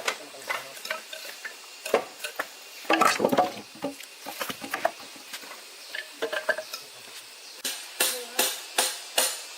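Irregular sharp knocks and clinks of hand work, with a busier cluster about three seconds in and a run of quick, evenly spaced strikes near the end, about three a second.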